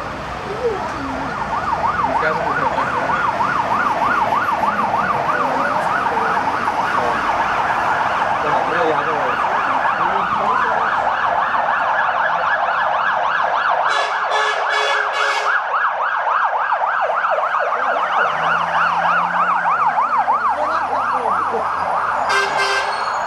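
Emergency vehicle sirens rising in a wail, then sounding a fast, overlapping yelp. Short bursts of rapidly pulsed horn-like tones cut in around the middle and again near the end, as emergency vehicles push through traffic to a plane crash fire.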